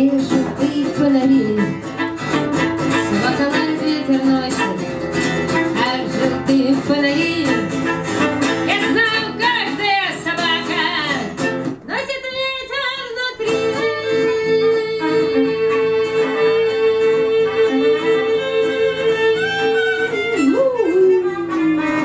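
Live song on a strummed acoustic-electric guitar with a wavering wordless lead melody over it. About twelve seconds in the guitar drops out briefly, then a single long note is held for about six seconds and slides down near the end.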